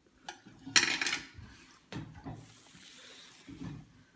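Close-miked eating sounds of a person chewing a mouthful, with short irregular mouth noises and one loud harsh noise about a second in.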